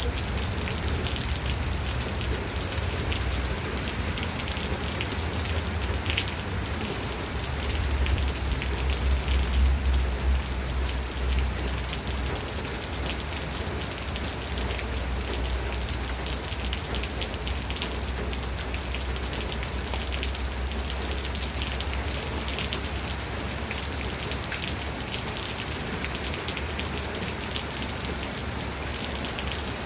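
Steady rain falling on a surface, a continuous hiss dense with fine drop patter. A low rumble swells for a few seconds about a third of the way through.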